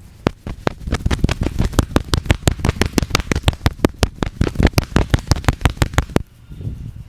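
A barber's hands slapping and tapping in quick percussive massage strokes, about six sharp slaps a second for some six seconds, stopping abruptly about a second before the end.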